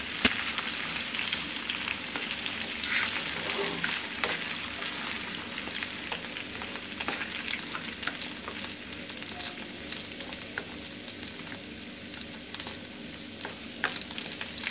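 Jaggery lumps melting in ghee and a little water, sizzling and bubbling in a non-stick pan while a wooden spatula stirs them, with many small crackles and taps throughout.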